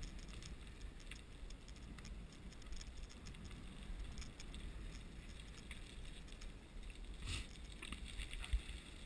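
Faint pattering and light jingling of a leashed dog trotting on pavement, over a low rumble from the moving camera, with a couple of louder bumps near the end.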